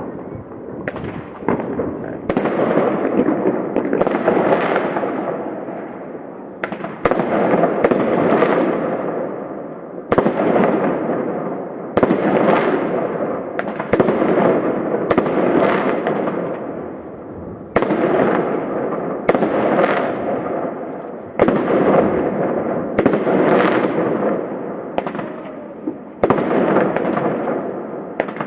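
Fireworks salute: a sharp bang every second or two as shells burst, each followed by a long echoing rumble and crackle that fades before the next.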